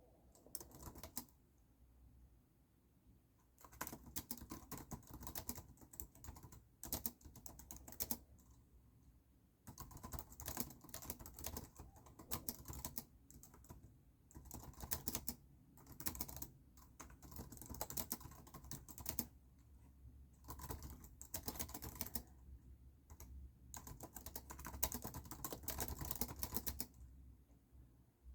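Typing on a computer keyboard: fast runs of key clicks in several bursts of a few seconds each, broken by short pauses.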